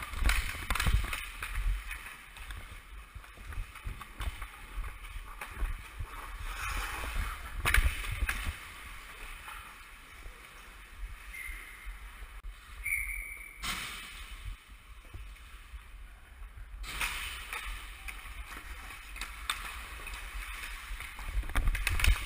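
Ice hockey skate blades striding and scraping across the ice, with a few sharp clacks of sticks and puck, near the start, about eight seconds in and near the end. The camera worn by a skater picks up movement and rushing air.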